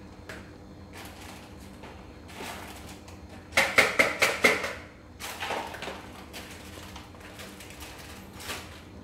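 Kitchen clatter: a quick run of about six sharp knocks some three and a half seconds in, followed by fainter knocking and a last light knock near the end, over a low steady hum.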